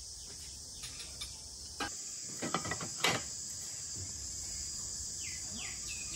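Steady high-pitched insect chorus, with a few sharp clinks of dishes in a metal washing basin about one to three seconds in. Near the end a bird gives a run of short falling chirps.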